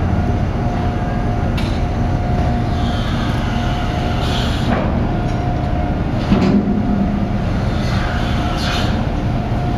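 Steady low rumble with a constant mechanical hum from the docked car ferry's machinery. There is a brief louder thump about six seconds in.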